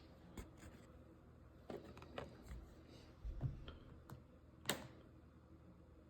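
Faint, scattered clicks and taps of cardboard trading cards being handled and shuffled, with one sharper click late on.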